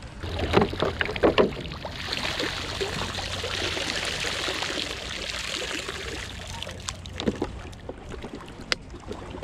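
Seawater splashing as a plastic bottle used as a live-bait container is dunked and handled in the shallows, then a steady rush of water pouring out of it for a few seconds, and a few small splashes near the end.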